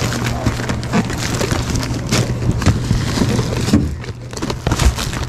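Plastic-wrapped packages and cardboard boxes rustling, crinkling and knocking as they are shifted around in a shopping cart, with a steady low hum underneath.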